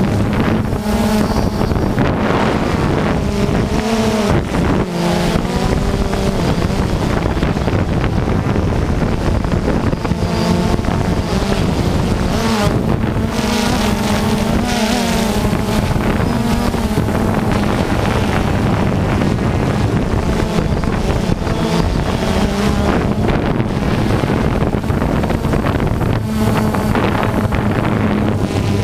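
Engines of radio-controlled off-road cars running around the track, their pitch rising and falling as they accelerate and slow, with wind buffeting the microphone.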